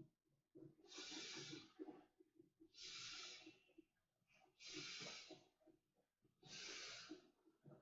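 Vinyl inflatable raft being blown up by mouth: four long breaths blown into the valve, about two seconds apart, with faint crackling between them.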